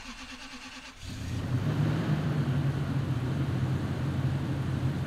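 First-generation Toyota Tundra pickup engine starting: the starter cranks for about a second, then the engine catches and runs steadily.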